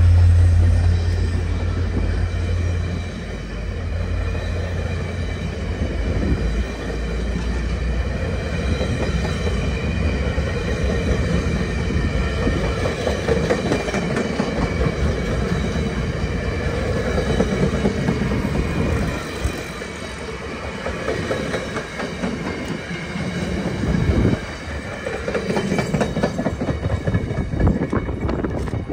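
VIA Rail passenger train with stainless-steel cars rolling past at speed. The wheels clack over the rail joints and there is a thin, steady high-pitched wheel squeal. A low diesel drone from the locomotives drops away in the first few seconds.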